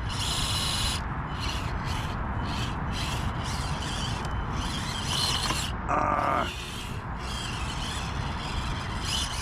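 Small 1/24-scale RC crawler's electric motor and gears whirring in short bursts, about two a second, as the throttle is blipped to inch it over an obstacle.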